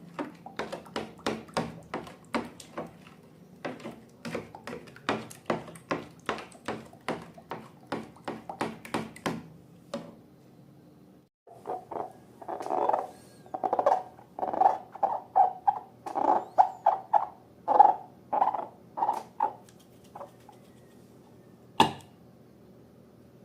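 Slime being pressed and pulled by hand, with a fast run of short sticky clicks and pops, about three or four a second. After a short break it changes to a run of wetter squelches, and a single sharp click comes near the end.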